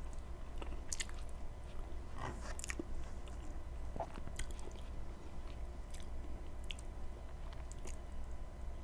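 Close-miked chewing of a mouthful of food, with irregular wet mouth clicks and smacks.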